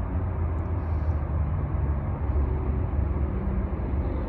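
Steady low rumble of diesel freight locomotives, an even drone with no sudden events.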